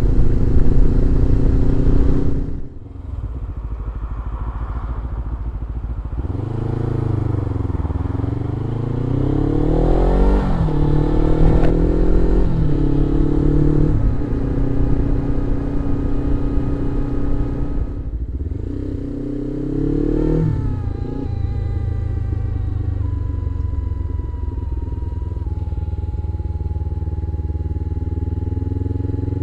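Suzuki GS500E parallel-twin engine through a Leo Vince exhaust while riding, its revs climbing and dropping back several times through gear changes, then running steadily.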